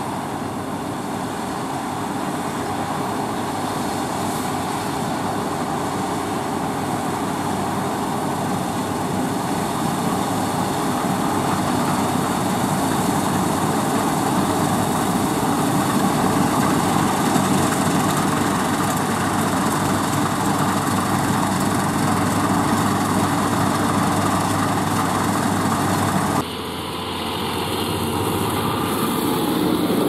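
Steady drone of a New Holland combine harvester working in wheat, with a John Deere tractor running alongside. The noise grows gradually louder, then changes abruptly about 26 seconds in.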